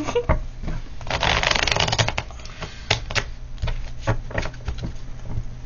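A deck of divination cards being shuffled by hand: a fast run of flicking card edges about a second in, then scattered separate snaps and taps of cards.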